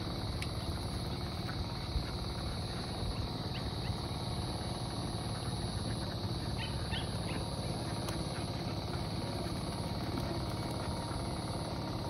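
A large flock of domestic laying ducks (itik) in a pen making a steady, continuous din of overlapping low quacks and chatter, with a few higher calls standing out around the middle.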